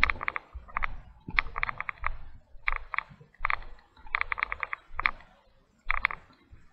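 Footsteps on a gravel trail, close by, each step a dull thud with a quick rattle of clicks, at a steady walking pace of a little over one step a second.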